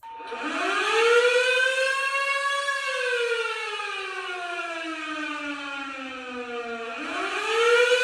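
Firehouse siren on top of a fire station, winding up in pitch, falling slowly over several seconds, then rising again near the end. It sounds to alert firefighters to a fire call.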